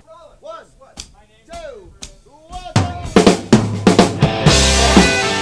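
Opening of a 1985 rock band demo: quiet pitched notes sliding up and down, with a few sharp drum hits. About two and a half seconds in, the full band comes in loud with drum kit and bass, and cymbals crash near the end.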